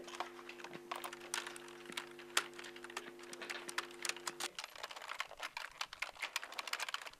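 Computer keyboards being typed on, with quick irregular key clicks throughout. A steady low hum lies under the first half and stops abruptly about halfway through.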